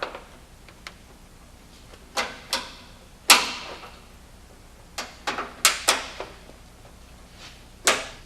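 LED light bar being snapped into its mounting brackets: a series of about ten sharp plastic-and-metal snaps and knocks at uneven intervals, the loudest a little over three seconds in and a quick cluster of four around five to six seconds.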